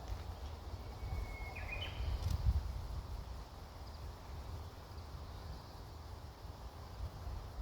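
Wind noise rumbling on the microphone, with one short bird call about one and a half seconds in: a brief whistle that steps up in pitch.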